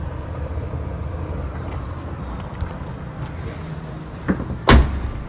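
Steady low rumble of outdoor traffic noise, with a small click about four seconds in and a loud thump near the end.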